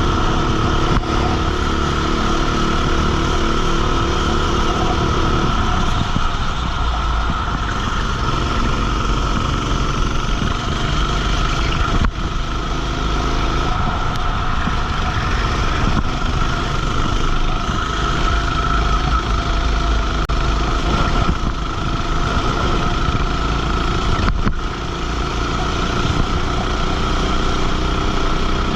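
Racing kart engine running hard on track, heard up close from the onboard camera. The sound is loud and continuous, with clear engine pitch lines that give way to a rougher sound about five seconds in, and two brief knocks later on.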